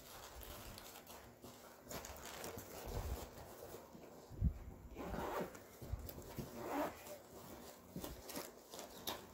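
Plastic bags rustling as accessories are handled in a hard-shell carrying case, the lid shutting with a soft thump about four seconds in, then the case's zipper being worked near the end.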